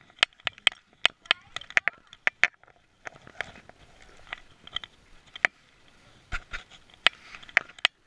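A dog's claws clicking on a hardwood floor as it moves about, heard close up from a camera strapped to its neck. The clicks are quick and irregular, about five a second at first and sparser after about three seconds in.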